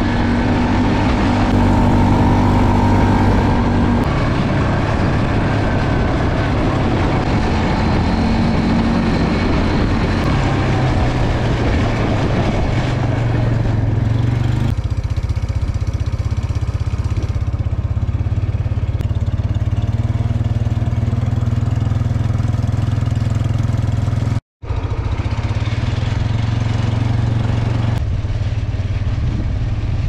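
ATV engine running steadily as it is driven slowly over a dirt pasture lane, with a loud low hum and rattling, noisier road sound in the first half. The sound drops out for an instant about three-quarters of the way through.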